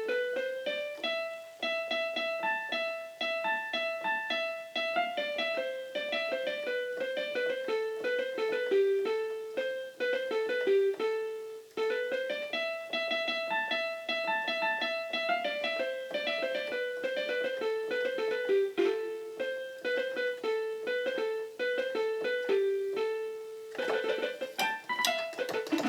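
Casio Casiotone keyboard playing a piano-like melody in single notes, with the phrase repeating about halfway through.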